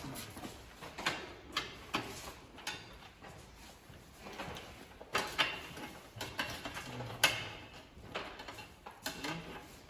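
Irregular clicks and light knocks as motorcycle parts are handled and a part is fitted and screwed on by hand, with a sharper knock about seven seconds in.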